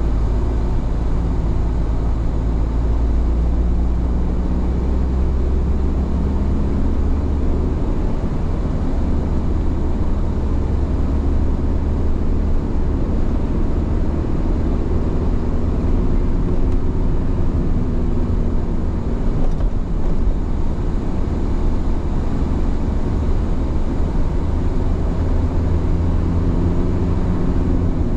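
A car driving along a road: steady engine and tyre road noise with a deep, even rumble.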